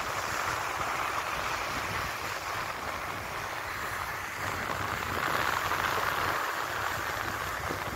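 Sea surf washing in with wind rushing over the microphone, a steady rushing that swells about five seconds in.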